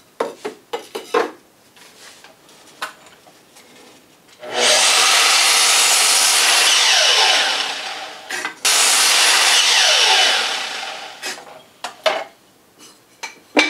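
Sliding mitre saw making two mitre cuts through the wooden frame pieces, each cut a few seconds long, with a short break between them; after each cut the blade's pitch falls as it winds down. Before the cuts, the wood knocks a few times as it is set against the stop block.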